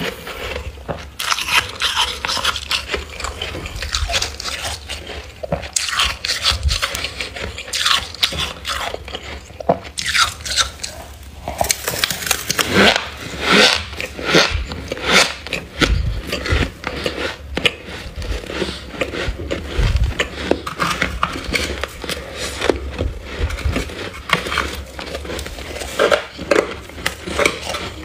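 Metal spoon scraping and scooping thick freezer frost off the freezer walls, mixed with crunchy bites and chewing of the frost, in quick irregular crunches that are loudest about halfway through.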